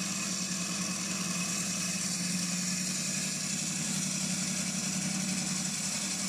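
Gryphon diamond bandsaw running steadily, its water-cooled diamond wire blade cutting through a piece of acanthastrea coral: a constant motor hum with a high hiss over it.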